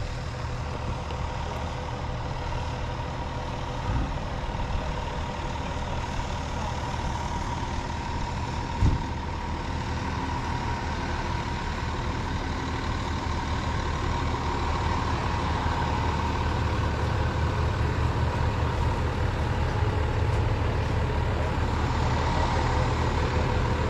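Steady low engine rumble with a faint steady whine, and two brief thumps about four and nine seconds in.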